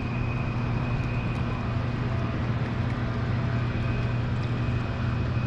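Steady low motor hum with a thin, constant high whine over an even background of noise, unchanging throughout.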